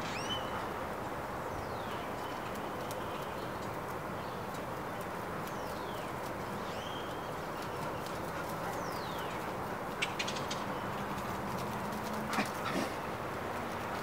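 Outdoor ambience: a steady background hiss with scattered short bird chirps, and a few sharp clicks about ten and twelve and a half seconds in.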